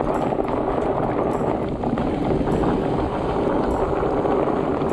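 Fat bike rolling fast over a bumpy dirt trail: a continuous rumble and rattle of the tyres on the ground and the bike shaking over the bumps.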